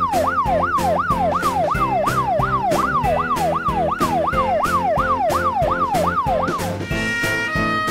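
Emergency-vehicle siren sound effect in a fast yelp, sweeping up and down in pitch about two and a half times a second, over upbeat background music with a steady drum beat; the siren stops near the end and the music carries on.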